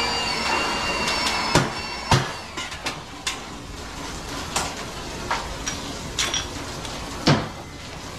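Sharp metal clanks and knocks, a few seconds apart, as metal parts of light fixtures and transformers are handled and dropped while being stripped for scrap. A small motor's whine stops about a second and a half in.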